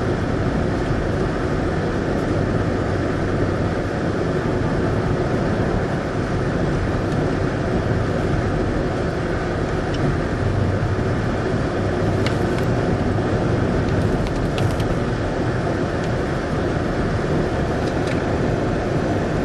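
Steady road and engine noise of a car driving, heard inside the cabin, with a few faint ticks in the second half.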